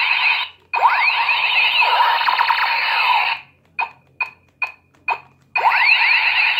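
Battery-powered toy space blaster's electronic laser sound effect: rapid overlapping sweeping zaps in long bursts, broken by four short single zaps near the middle, with the next long burst starting about a second before the end.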